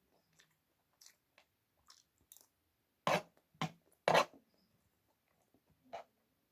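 A person chewing food close to the microphone: soft wet mouth clicks, with three louder crunchy bites about three to four seconds in and another just before the end.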